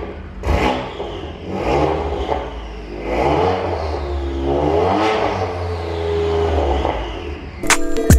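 BMW S55 twin-turbo straight-six revved several times in quick blips from idle, the pitch rising and falling with each blip, over a steady low idle rumble. Electronic music cuts in just before the end.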